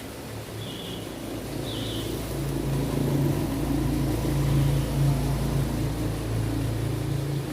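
An engine drones steadily and grows louder from about two seconds in.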